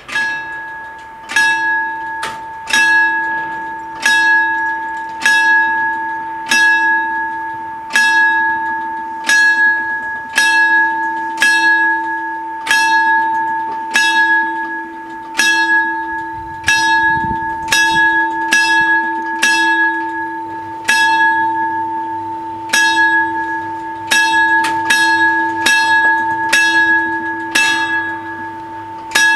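Level-crossing warning bell of an Italian FS 64 crossing ringing: single metallic strikes about every second and a quarter, each ringing on, with a few strikes coming in quick pairs. It starts suddenly as the crossing activates, warning of an approaching train while the barriers come down.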